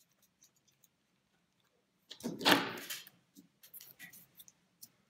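Fabric-wrapped embroidery hoop being taken apart: a loud rustling scrape about two seconds in as the inner ring and stretched fabric pull out of the outer ring, followed by light taps and rustles as the rings are handled.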